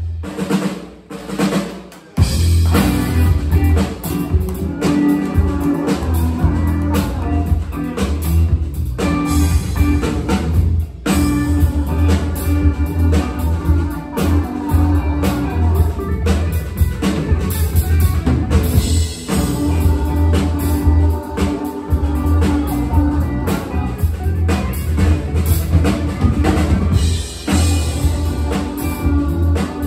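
Live rock band playing amplified electric guitar, electric bass and drum kit. The full band comes in about two seconds in and cuts out together for a split second near the middle.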